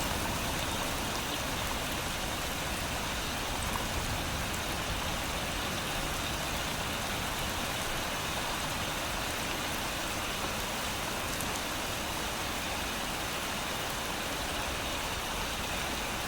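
Steady rain falling on leaves: an even hiss of rain with faint individual drops pattering.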